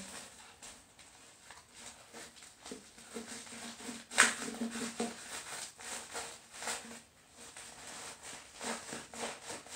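Multitool knife blade cutting and scraping through the tape and paper of a padded mailer, with irregular crinkles and scrapes and one sharp click about four seconds in.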